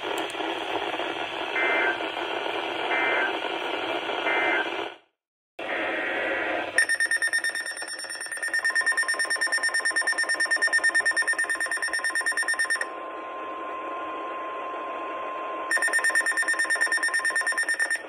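A NOAA weather alert radio plays the hissy tail of a broadcast with three short data-tone bursts, then cuts out for about half a second. About seven seconds in, the radio's own alert alarm starts beeping rapidly. A steady warning tone joins it, and the beeping drops out for about three seconds before returning near the end.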